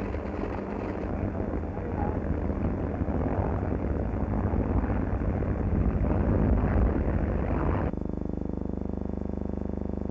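Propeller engine of a light single-engine monoplane in flight, a steady, noisy drone. About two seconds before the end it gives way to a smoother, even hum.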